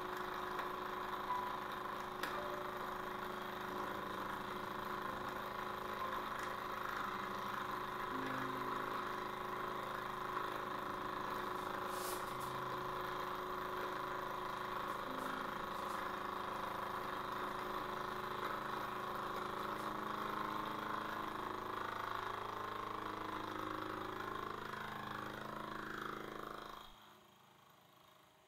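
Benchtop milling machine running with its end mill in a metal workpiece, a steady machine hum. Near the end the spindle motor is switched off and winds down, its pitch falling, until it stops.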